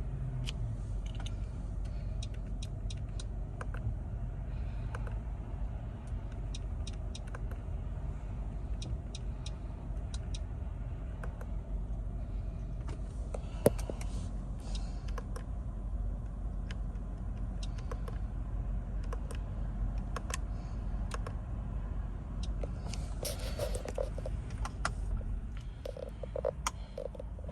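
Low, steady rumble of a Mercedes GLB heard from inside the cabin, with scattered light clicks and one sharper click about halfway through.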